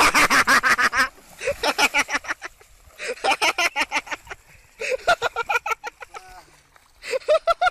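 A splash as a cyclist and bicycle plunge into a shallow creek, then several bouts of rapid, high-pitched laughter, each a quick run of 'ha' pulses with short pauses between.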